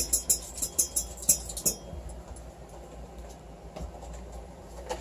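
A utensil stirring food colouring into glue in a bowl, clicking and tapping quickly against the bowl for the first two seconds, then going quieter.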